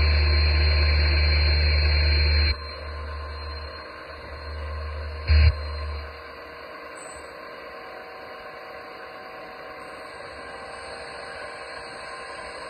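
Simulated diesel engine sound from a Servonaut SMB sound module, played through the RC excavator's small loudspeaker. It runs loud for about two and a half seconds, drops lower, rises again in a short blip about five seconds in, and fades out about six seconds in, leaving a steady hiss.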